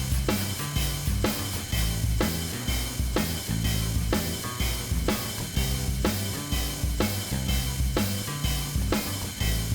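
Background music with a steady drum beat of about two beats a second over a bass line.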